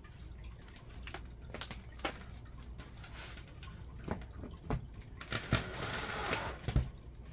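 Scattered light knocks and clicks from hands-on work on a stovepipe fitting, with a brief scraping rustle about five to six seconds in and a sharper knock just before the end.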